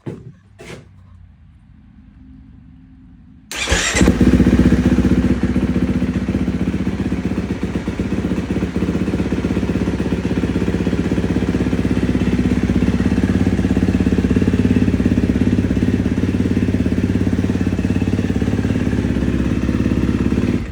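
2016 KTM 350 SX-F's single-cylinder four-stroke engine starts on the electric starter about three and a half seconds in. It catches at once and then runs steadily, its new starter torque limiter gear no longer slipping.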